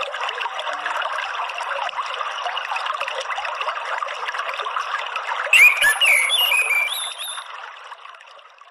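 Steady trickling water with short, quickly gliding twittering phrases from an orange-headed thrush about five and a half seconds in: the soft ngeriwik song played as a lure to set a caged thrush singing. The track fades out near the end.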